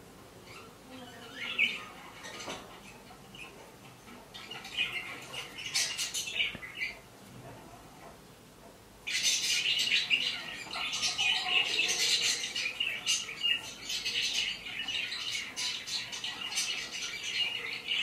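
Budgerigars chirping and chattering. The chirps are sparse at first; about nine seconds in they switch suddenly to louder, dense, unbroken chatter.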